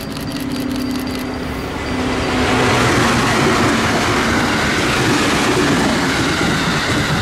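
A train passing close by at speed. A quick run of clicks comes in the first second, then the running noise swells about two seconds in and stays loud.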